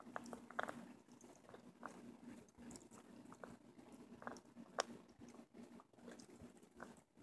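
A small dog chewing a dried beef tendon: faint, irregular crunches and clicks of teeth working the hard chew, a few of them sharper than the rest.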